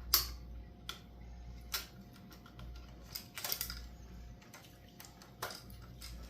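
Irregular light clicks and taps, a dozen or so spread out, the loudest just after the start: a plastic zip tie being pulled through and tightened, and handled.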